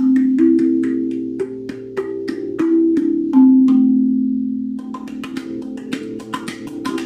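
Guda steel tongue drum being played: a run of quick strikes whose low notes ring on and overlap. About halfway through, one strong low note rings out nearly alone before the quick strikes start again.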